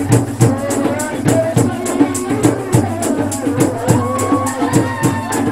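A woman singing into a microphone over amplified music with a steady drum beat.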